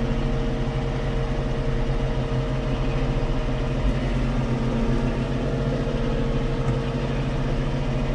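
Tractor diesel engine running at a steady speed, heard from inside the cab.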